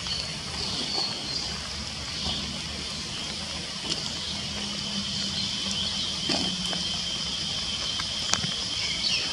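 Steady rush of flowing floodwater, with a faint low hum in the middle, a thin high steady whine in the later part, and a few faint clicks.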